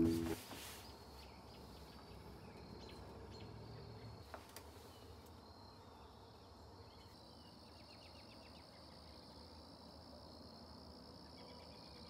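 Faint outdoor ambience with insects, likely crickets, trilling steadily in a thin high band and growing a little stronger about halfway through, with scattered faint ticks and one small click about four seconds in. Bowed cello-and-bass music fades out at the very start.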